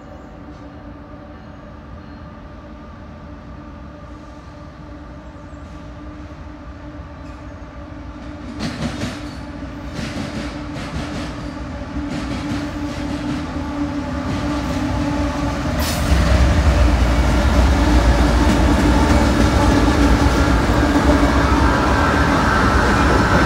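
A CSX coal train's diesel locomotives approaching and passing close by, engines running under load. The wheels begin knocking and clicking over the rail joints about a third of the way in. The sound grows steadily louder and jumps up sharply about two-thirds in as the locomotives come alongside.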